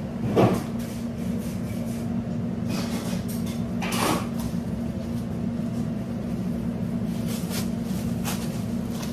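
Steady mechanical hum of kitchen equipment, with two knocks like a door or cupboard shutting, about half a second in and again about four seconds in, and a few light clicks near the end.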